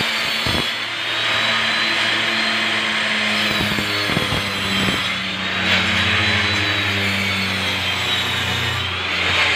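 Electric circular saw running through a long cut in plywood sheet: a steady high motor whine over the hiss of the blade in the wood, the whine wavering slightly in pitch now and then.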